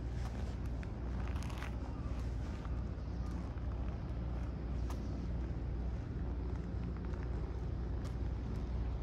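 Outdoor field recording: a steady low rumble with a faint even hum, and scattered light clicks and taps.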